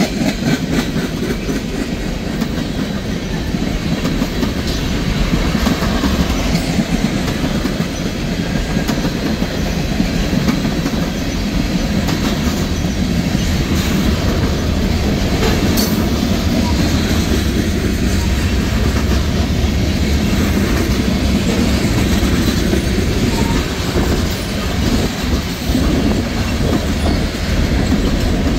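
Freight cars of a mixed freight train rolling past at track side: a steady rumble of steel wheels on rail with the clickety-clack of wheels over rail joints.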